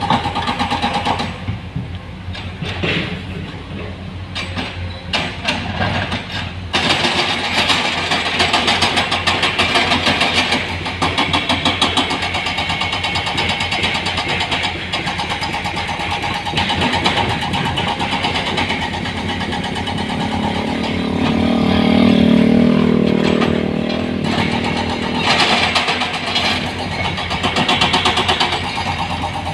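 Heavy diesel machinery running steadily, with a louder, deeper engine sound for a few seconds about two-thirds of the way through.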